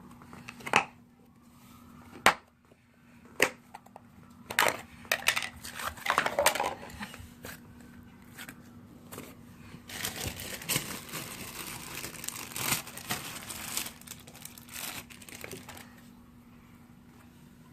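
Homemade slime being squeezed and pressed by hand, giving a string of sharp pops and crackles as trapped air escapes: the slime 'fart' noises. From about ten to fourteen seconds in, the crackling becomes a continuous squelching run before it thins out again.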